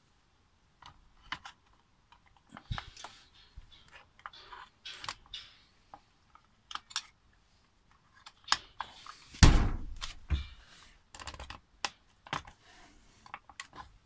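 Handling noise as the motor, gearbox and drive-rod unit of a Raymarine ST1000/ST2000 tillerpilot is set into its plastic casing: irregular light clicks and knocks of plastic and metal parts, with one louder knock and a short rattle about two-thirds of the way through.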